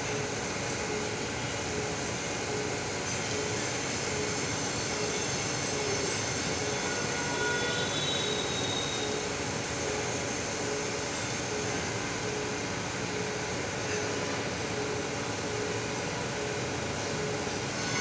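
Crankshaft grinding machine running, its abrasive wheel grinding a crankpin journal to size under flowing coolant: a steady grinding and machine noise with a faint regular pulse a little faster than once a second.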